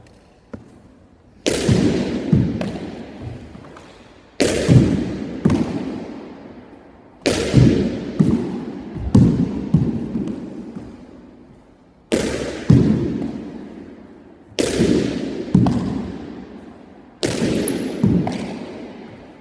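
A pitching-machine ball thrown hard against a wall and fielded with a glove, over and over: each throw gives a sharp bang followed by a few quicker knocks as the ball bounces and is caught, about every two to three seconds. Every impact rings with a long echo off the bare walls of the enclosed court.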